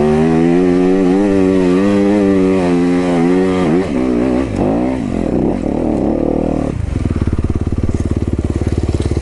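Yamaha YZ250FX's 250 cc four-stroke single-cylinder engine pulling up a steep, rocky climb, revs rising and falling with the throttle, then settling to a steady idle about seven seconds in.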